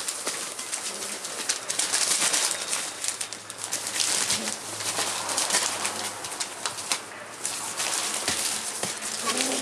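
Rough collie puppies scuffling and wrestling on a newspaper-lined floor: irregular crinkling and rustling of paper under their paws, with soft low puppy grunts mixed in.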